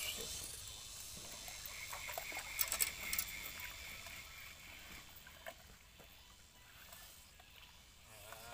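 Quiet lakeside ambience with a steady high hiss of insects, and a brief cluster of sharp clicks and rattles from handling about two and a half seconds in, as a freshly caught wild tilapia is held up and taken off the hook.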